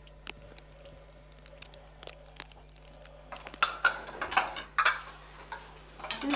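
Ceramic plates clinking as they are set down on a table, a few sharp clinks starting about halfway through after a quiet start.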